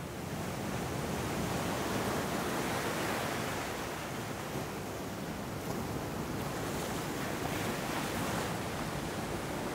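Ocean surf at high tide washing in over a rocky, sandy beach: a steady rush of breaking and receding waves, slightly fuller about two seconds in.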